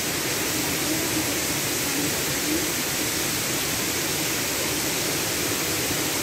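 Steady rushing roar of a nearby waterfall, an even unbroken noise of falling water.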